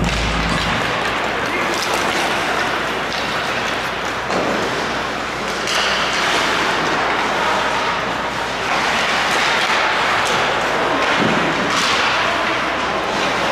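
Ice hockey play: skates scraping the ice, with scattered sharp clacks and knocks of sticks and puck over a steady wash of rink noise.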